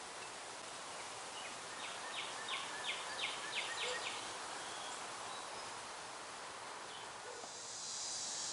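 Faint, steady outdoor background noise, with a quick run of about eight short high-pitched chirps, roughly three a second, about two seconds in.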